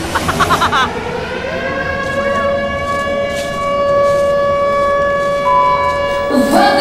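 Civil defense air-raid siren winding up, its pitch rising over the first second and a half, then holding a steady wail.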